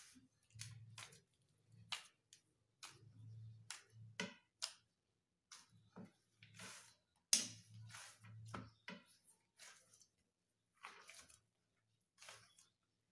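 Hands kneading soft wheat-flour chapati dough in a steel plate: faint soft thumps of the dough being pressed and pushed against the plate, with irregular sharp clicks scattered throughout.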